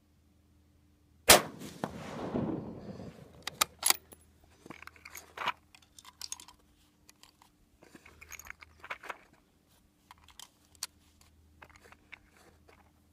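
A single rifle shot from a Savage 10FP in .223 Remington, about a second in, its report dying away over about a second and a half. It is followed by a scatter of metallic clicks and light rattles as the bolt is worked and a cartridge is picked from a plastic ammo box.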